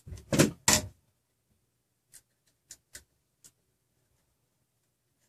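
Hand handling noise of a printed shaft coupling and threaded rod being worked: two short rustling scrapes in the first second, then a few faint light clicks.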